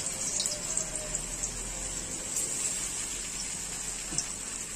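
Chhena (cottage cheese) fritters sizzling in hot oil in a kadai, a steady hiss with a few faint pops.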